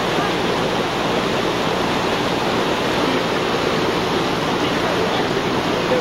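Fast river rapids rushing over rocks: a steady, loud rush of whitewater.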